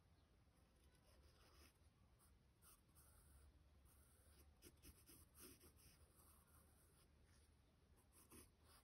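Faint scratching of a pencil drawing short strokes on paper, starting and stopping several times.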